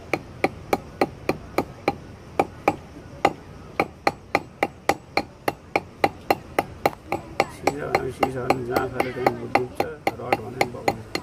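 Small hammer tapping a coiled lead fishing sinker against a flat stone to clamp it onto the line: quick, sharp, evenly spaced strikes about three to four a second throughout. A faint voice is heard under the strikes in the second half.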